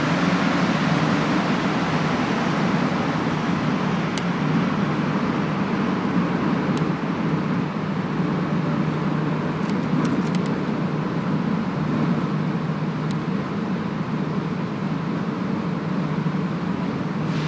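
Inside a rubber-tyred Montréal Métro train, a steady mechanical hum as the train slows to a stop and stands at a station platform, with a few faint clicks.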